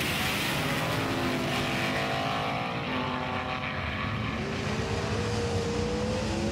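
Race car engine sound, a steady multi-tone engine drone whose pitch shifts around the middle and climbs slowly near the end.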